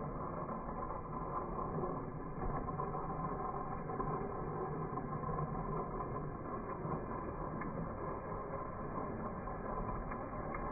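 Plarail toy train (Kintetsu 80000 series Hinotori) running steadily along plastic track: the battery-driven motor and gears whir and the wheels roll on the track.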